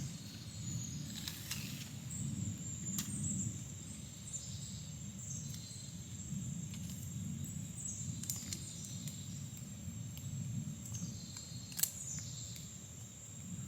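Outdoor woodland ambience: a steady high-pitched drone over a low rumble, with a few short falling chirps and scattered faint clicks.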